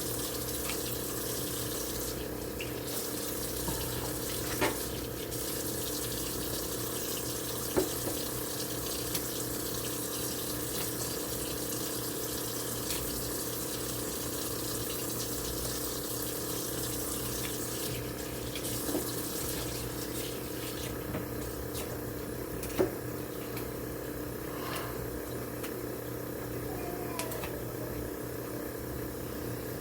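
Kitchen tap running steadily into a sink while chicken feet are washed, with a few sharp knocks now and then.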